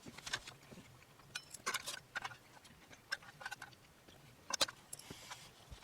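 Irregular light clicks and taps of eating utensils against dishes during a meal.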